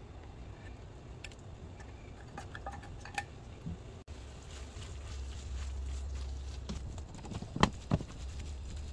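A few light clicks and knocks over a steady low hum, then two sharp louder knocks in quick succession near the end.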